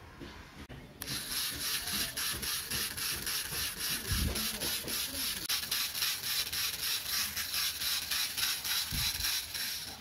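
A small DC gear motor switches on about a second in and turns a tin-can mixer drum of wet cement mix, giving a steady gritty mechanical rattle at about five pulses a second. There are a couple of low thumps, and it stops near the end.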